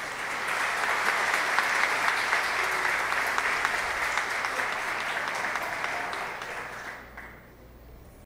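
Audience applauding, a dense patter of clapping that dies away about seven seconds in.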